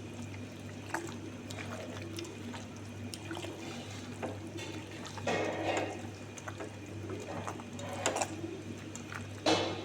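Intermittent wet liquid sounds over a steady low hum, the largest about five seconds in and again near the end.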